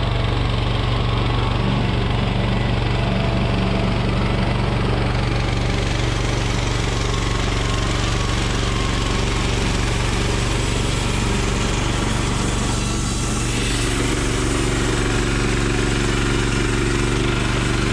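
Woodland Mills HM126 bandsaw mill running under load, its 14 hp engine running steadily as the band blade saws a cedar log into a board. A higher hiss joins the engine from about five seconds in as the saw head draws near and passes.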